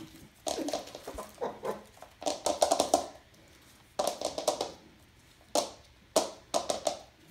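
Wire puppy playpen rattling in about eight short bursts of quick clicks, with quiet gaps between them, as the puppy works at the wire.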